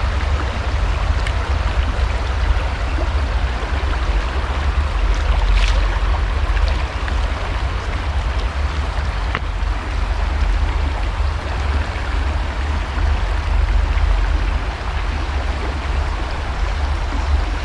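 River water rushing steadily over a shallow rapid, with wind buffeting the microphone as a heavy low rumble.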